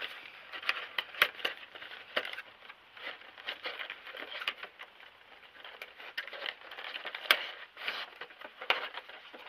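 Funko Pop boxes and their plastic packaging being handled: irregular crinkling and sharp clicks over a steady hiss, with the sharpest click about seven seconds in.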